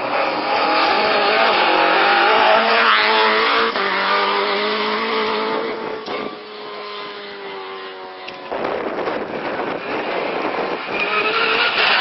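Ford Escort Mk2 rally car driven hard past the junction, its engine note dropping as it goes by and fading away down the road. About eight and a half seconds in, the engine of a second rally car, an Opel Adam, rises as it approaches.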